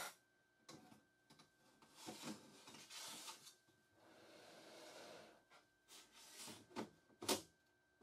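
Metal handling sounds of a Nehalem Mac Pro's processor and memory tray being slid back into its aluminium case: a click, then scraping and sliding, then a few clicks with a sharper knock near the end.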